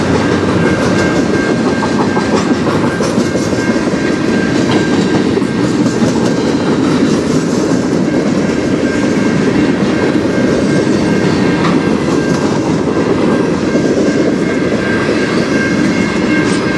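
Freight cars of a CN manifest train rolling steadily past, a loud even rumble with the wheels clicking over the rail joints. A thin steady high tone sits above the rumble.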